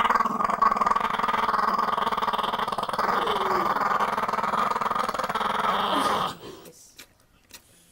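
Small brown-and-white terrier growling with its teeth bared, one long unbroken growl that stops abruptly about six seconds in.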